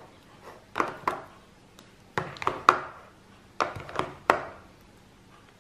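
Metal spoon knocking and scraping against a thin plastic tub while stirring wet slime: sharp clacks in three small clusters, about eight in all.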